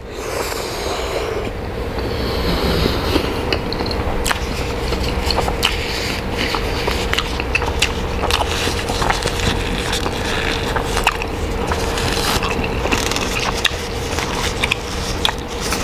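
A person biting into a chicken burger with a soft bun and black pepper sauce, then chewing it close to a lapel microphone: a steady run of chewing noise with many small clicks. A faint steady hum lies underneath.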